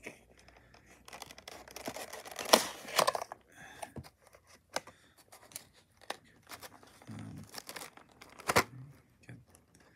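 Clear plastic packaging tray of a model airliner being handled and worked open: crinkling and crackling plastic with sharp snaps and clicks. A loud crackle comes a couple of seconds in and another near the end.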